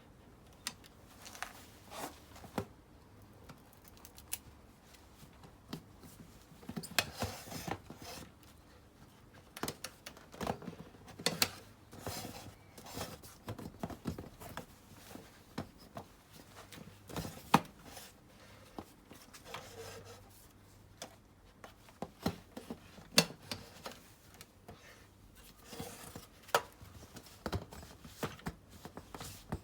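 Irregular clicks, taps and short scraping or rustling sounds of hands working with tools and parts, with no steady rhythm.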